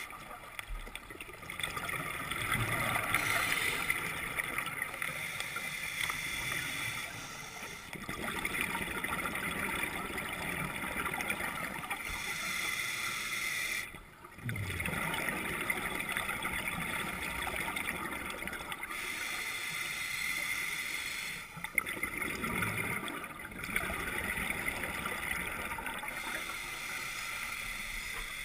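A scuba diver's regulator breathing underwater, alternating hissing and bubbling in cycles every few seconds.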